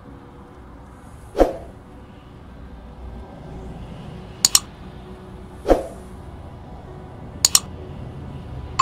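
Sound effects of a subscribe-button animation: sharp clicks and pops about every one and a half to three seconds, two of them quick double clicks like a mouse button, over a faint steady hiss.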